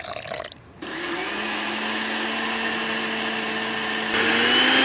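After a few light clicks, an electric countertop blender starts about a second in and runs steadily, puréeing a thick yellow paste with water in its glass jar. About four seconds in it gets louder and brighter.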